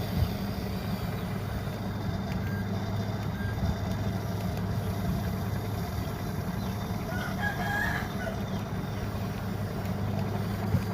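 Bulldozer engine running steadily with a low hum while levelling sand. A short bird call sounds in the background about seven seconds in.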